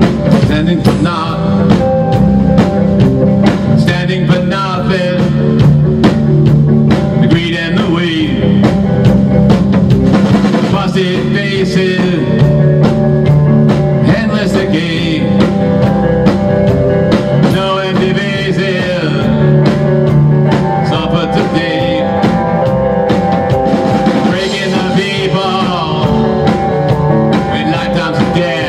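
A rock band playing live in a small rehearsal room: a drum kit keeps a steady beat under electric guitars.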